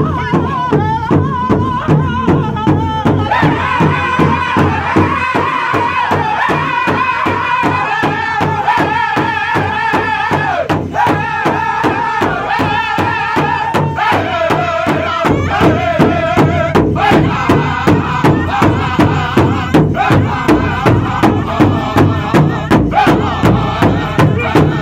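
Powwow drum group: several men striking one large hide drum together with padded drumsticks in a steady beat while singing in unison. About halfway through, the drumbeat becomes heavier and more pronounced.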